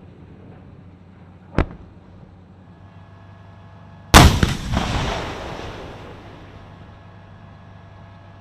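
Large-calibre main gun of a tracked armoured vehicle firing a single zeroing shot about four seconds in: a loud boom with a long rumbling echo that dies away over about two seconds. A smaller, sharp crack comes about a second and a half in.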